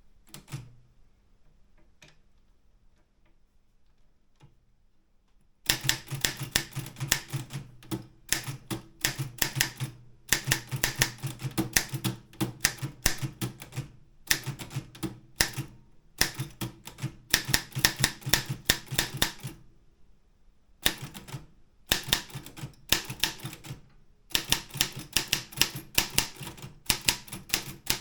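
Optima M12 manual office typewriter typing: after a few faint clicks, fast runs of type-bar strikes begin about six seconds in and carry on, broken by a few brief pauses.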